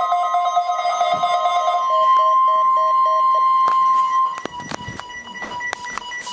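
Weather radio alarm tones: pulsing electronic beeps, then about two seconds in a steady single tone near 1 kHz for about two seconds, typical of the NOAA Weather Radio 1050 Hz warning alarm tone. After that the sound drops to quieter repeated short beeps with a few clicks.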